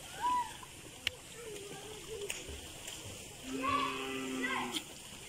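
Faint distant voices calling out. Near the end comes one longer held call lasting about a second.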